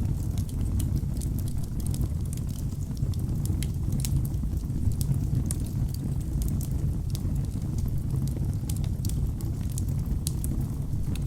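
Wood fire burning in a fireplace: a steady low rumble of flames with frequent sharp, irregular crackles and pops from the burning logs.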